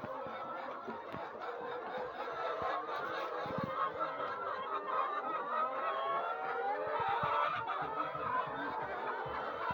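A flock of laying hens clucking and cackling, many birds calling over one another without a break, with a few soft knocks in among them.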